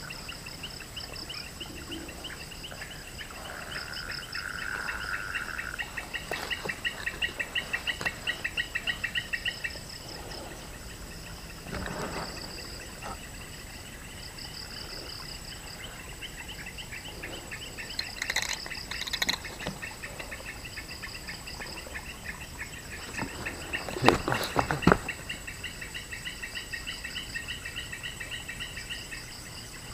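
A chorus of overlapping, rapidly pulsed chirping animal calls, with one pulsing trill loudest from about six to ten seconds in. A few short knocks and rustles of handling, the loudest about two-thirds of the way through.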